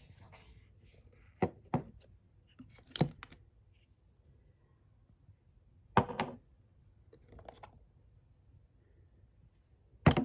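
A few scattered light knocks and clicks, about six in ten seconds, of things being handled and set down in a small room.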